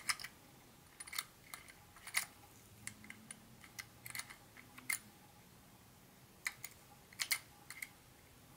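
Hands handling a model train set's parts and packaging: irregular light clicks and taps, about fifteen in all, with the sharpest at the start and a pair about seven seconds in.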